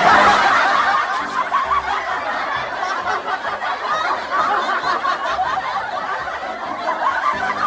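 Many people chuckling and snickering together, a dense wash of laughter that starts suddenly.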